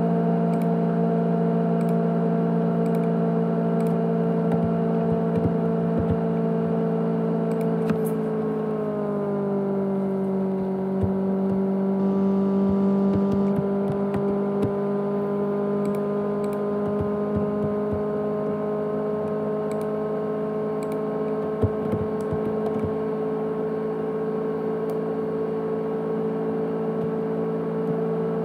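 500GB USB external hard drive running with a loud, car-like hum of several steady tones. About nine seconds in the pitch sags, then slowly creeps back up, with faint ticks over the hum.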